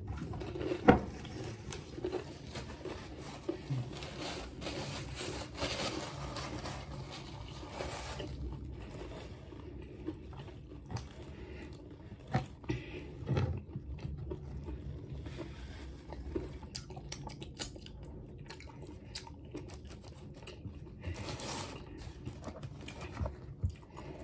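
Close-up eating sounds: chewing and crunching of food, with scattered small clicks, crackles and handling noises, a few louder pops about a second in and around the middle.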